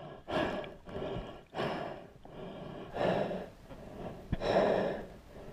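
A snorkeller breathing in and out through a snorkel, several breaths in a row, with a sharp click about four seconds in.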